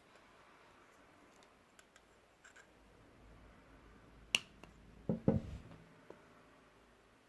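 Small handling sounds of craft materials on a work surface: one sharp click about four seconds in, then a few soft knocks, over a low quiet background.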